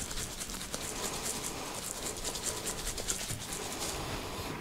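Dry spice rub being shaken out of its container onto raw pork spare ribs: a quick, rhythmic scratchy rattle of seasoning granules, about four shakes a second.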